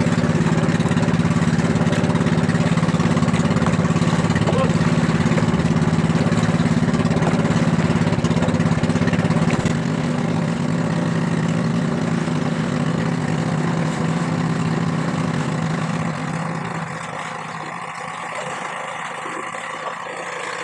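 Engine of a motorised outrigger boat running steadily with a low hum. It drops in level about ten seconds in and fades out around seventeen seconds, leaving water and wind noise.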